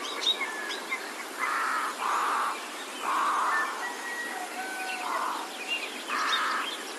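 Farm ambience of small birds chirping and twittering in quick short notes, over a steady outdoor background. Several short, noisy, rasping bursts come and go every second or so among the chirps.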